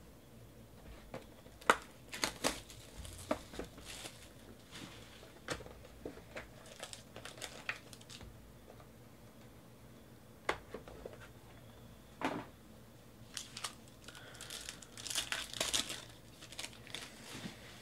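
Foil wrapper of a Panini Limited football card pack crinkling and tearing open, among scattered clicks and rustles of cards and box being handled. The densest crinkling comes about 15 to 16 seconds in.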